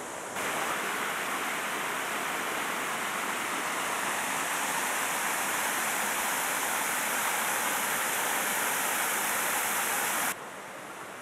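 Mountain creek rushing over small stepped weirs: a steady rush of falling water that steps up just under half a second in and drops sharply to a quieter rush about ten seconds in.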